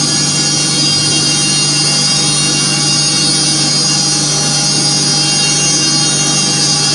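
CNC endodontic-file grinding machine running, a steady hum with a constant high whine.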